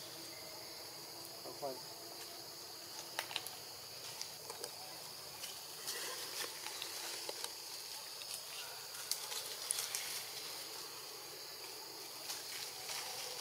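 Steady high-pitched insect drone, with scattered short rustles and scrapes in dry leaves and soil as a young monkey paws at a toad.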